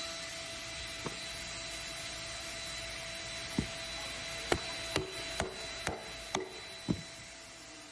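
Cam-Wood CM-530-4S CNC dovetailer running with a steady hum and hiss, while a series of sharp wooden knocks comes about twice a second in the second half.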